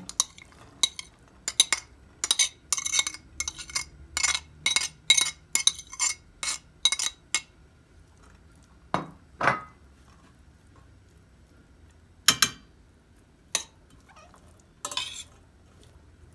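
A utensil clinking and scraping against a stainless-steel pan as corn kernels are stirred in it: a quick run of clinks for about the first seven seconds, then a few scattered knocks.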